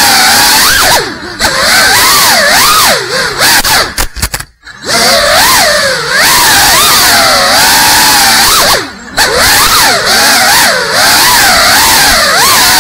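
GEPRC Cinelog 35 cinewhoop's brushless motors and propellers whining, heard from the onboard camera, the pitch swooping up and down with the throttle. The sound drops away briefly about a second in, again for about a second around the four-second mark, and once more near nine seconds, where the throttle is chopped.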